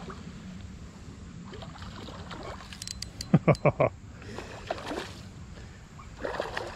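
A hooked smallmouth bass splashing twice at the surface close to the bank, over a steady rush of river water.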